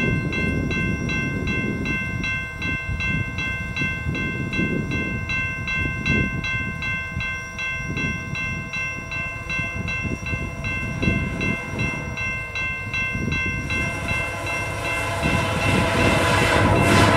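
Level-crossing warning bell ringing in fast, even strikes. Over the last few seconds the rising noise of an approaching VIA Rail passenger train grows louder.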